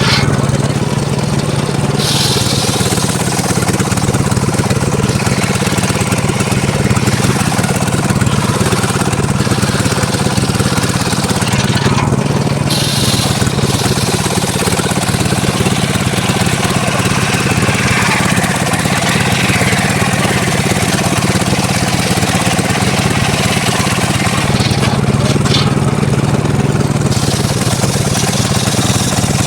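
Engine-driven circular sawmill running steadily while sawing mahogany: a constant engine hum under the noise of the blade in the wood. The sound of the cut changes a few times as it goes.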